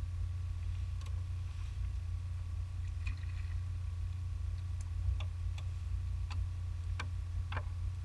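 Steady low rumble under a faint thin whine on a small fishing boat, with about half a dozen sharp clicks from handling the rod and reel in the last three seconds as a hooked fish is lifted in.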